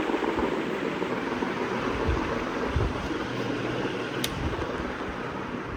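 Ceiling fan running, its airflow buffeting the microphone as a steady rushing noise with low rumbling gusts that slowly gets quieter. A single sharp click about four seconds in.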